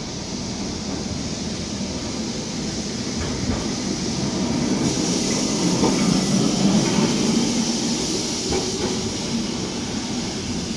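Vintage Lisbon tram rolling past close by on street rails, its wheels rumbling on the track with a few clacks. The rumble swells to its loudest a little past the middle as the tram goes by.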